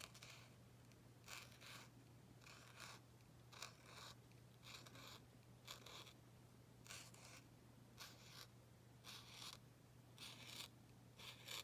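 Faint scratchy strokes of a paint marker's tip on paper, short strokes coming about once or twice a second as small leaf shapes are drawn. A low steady hum sits underneath.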